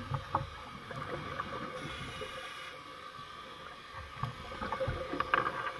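Underwater recording through a dive camera housing: a steady hum with scattered pops and crackles of a scuba diver's exhaled bubbles, growing into a denser burst of bubbling near the end.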